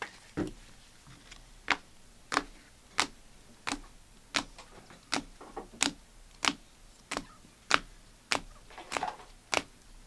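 Rigid plastic toploader card holders clicking against each other as a stack of trading cards is flipped through one card at a time, a sharp click about every two-thirds of a second.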